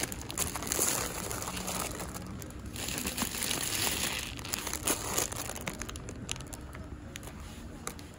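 Plastic wrapping of an instant-noodle four-pack crinkling as it is pulled off the shelf and handled, in irregular bursts of rustling with a few light clicks.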